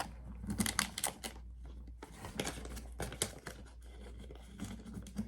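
Paper banknotes being handled and slipped into slots: irregular rustling and crinkling with small clicks.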